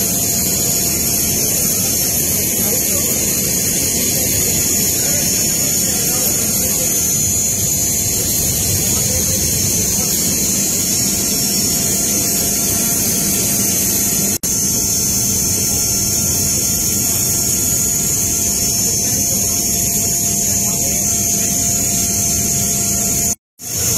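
Steady loud rush and high whine of a military transport aircraft's machinery running, heard inside the cargo hold, with several steady tones held throughout. The sound drops out for an instant twice.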